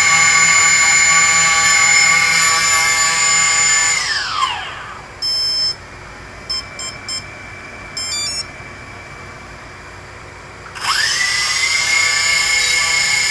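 Hobby King Nova quadcopter's brushless motors whining at a steady speed, then spinning down about four seconds in. A few short electronic beeps follow, then the motors spin back up quickly near the end and run steadily again. The stop and restart is the kind of unreliable arming and motor running that the owner is troubleshooting.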